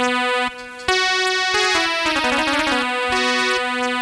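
Keyboard instrument playing an instrumental interlude of held, sustained notes: a brief break about half a second in, then a melody that steps downward.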